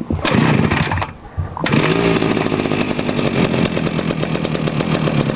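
Komatsu Zenoah G4K 43cc two-stroke petrol strimmer pull-started cold on full choke: one pull of the recoil starter, then about a second and a half in the engine catches and runs steadily.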